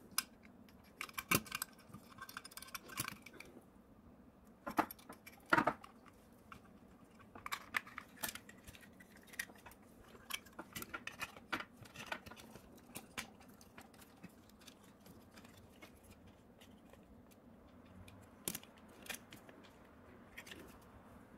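Sheet-metal housing pieces of a SnapMaker 2.0 3D printing module being handled and fitted together: scattered light clicks and taps of metal parts, with a few sharper knocks.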